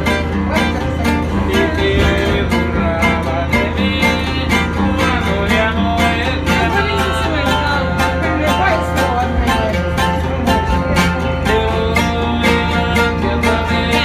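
Background music: an upbeat song with plucked guitar or banjo, a steady beat and a low bass line, possibly with a sung vocal.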